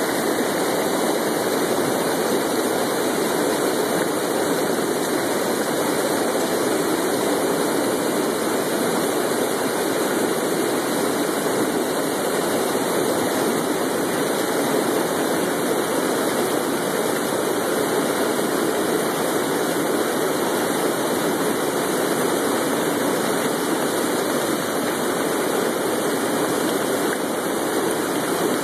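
River water pouring over a low dam spillway: a steady, loud rush of falling, churning water that does not change.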